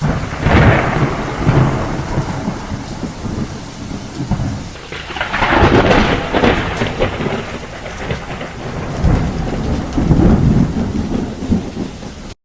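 Loud rushing, rumbling noise that swells three times and cuts off abruptly at the end.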